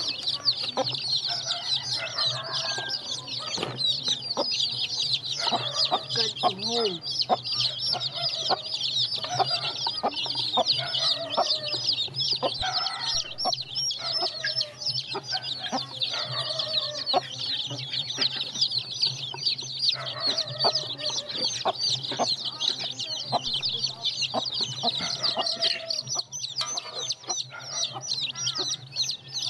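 A crowded brood of young chicks peeping constantly in high-pitched chorus, with scattered lower clucking calls among them. A steady low hum runs underneath.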